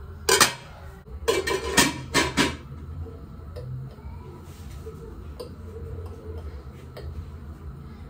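Glass lid being set onto a metal cooking pot: one loud clatter against the rim, then a quick run of knocks and clinks as it settles. A low steady hum follows.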